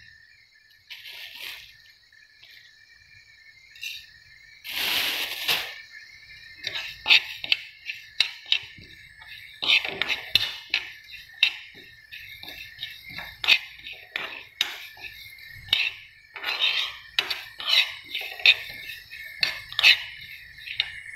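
Metal spoon stirring flax seeds as they dry-roast in a non-stick pan: irregular scrapes and clinks against the pan, several a second, with a louder, longer scrape about five seconds in.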